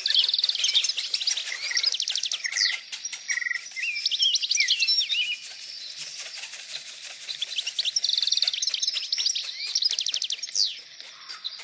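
Several birds singing together: quick chirps, rapid trills and short whistled notes overlapping throughout, as in a dawn chorus of small songbirds.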